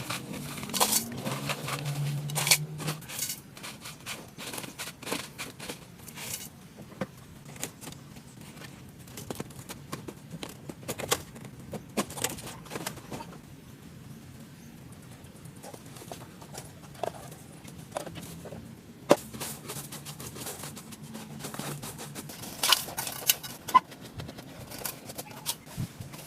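Irregular clicks, taps and knocks of hand work on small parts, with a brief low hum near the start.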